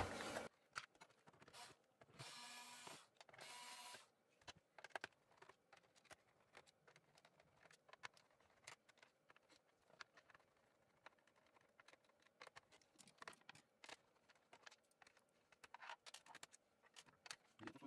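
Faint scattered clicks and taps of hands handling a laptop's underside while the RAM module is taken out of its slot. Two short noisy swishes come about two and three and a half seconds in.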